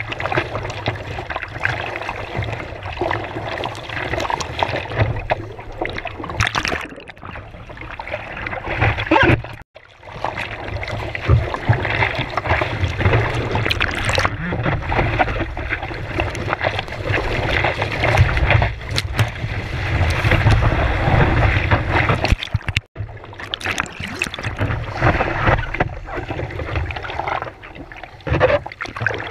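Sea water splashing and sloshing against a surfboard, heard close at a board-mounted camera as the surfer paddles and sits on the board, over a steady low rumble. The sound drops out suddenly twice, briefly.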